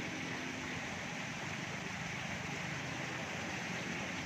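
Steady rush of flowing creek water, an even hiss with no distinct splashes.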